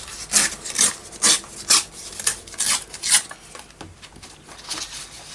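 Paper from a sheet of music being torn by hand in a series of short rips, about two a second, stopping after about three seconds, with a couple more softer rips near the end.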